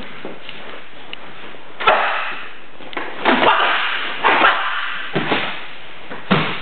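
Karate techniques in a bunkai drill: about five short, sharp bursts of gi sleeves snapping, feet striking the mat and clipped exhalations, the last as a partner is taken down to the mat.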